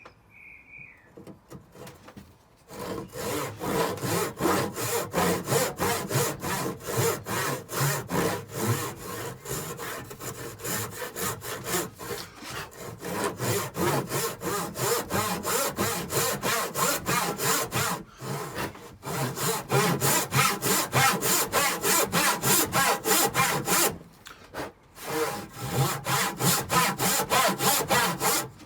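Handsaw ripping along the grain of a thick square timber: rapid, regular back-and-forth strokes, with two short pauses in the sawing.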